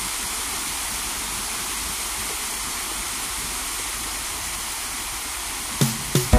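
Steady, even rushing hiss, like running water. Near the end, two short musical notes break in as music starts.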